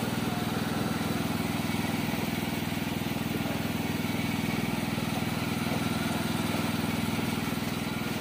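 Small engine running steadily at an even speed: a low, unchanging drone with rapid firing pulses.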